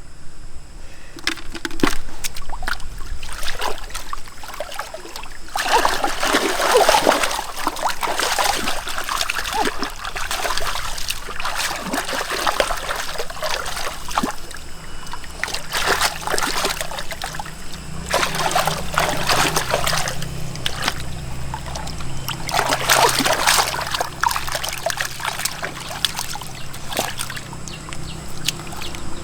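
Water splashing and trickling, swelling into louder bursts of splashing several times.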